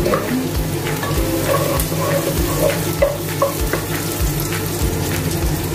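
Bell pepper pieces going into a pot of onion and garlic sautéing in butter, sizzling steadily, with a wooden spatula scraping and stirring against the pot.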